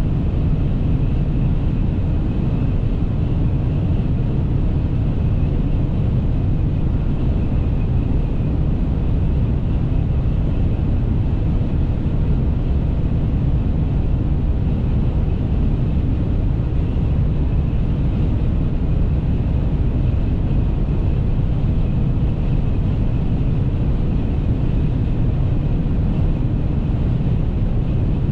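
Cab interior of a 2014 Ram 1500 pickup with the 5.7 HEMI V8, cruising at a constant high speed of about 167 km/h: a steady deep drone of engine, tyres and wind.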